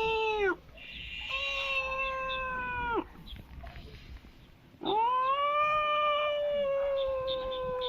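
Long drawn-out, cat-like yowling calls: one ends right at the start, another lasts about two seconds, and a third begins about five seconds in and is held steady on one pitch, falling slightly at the end.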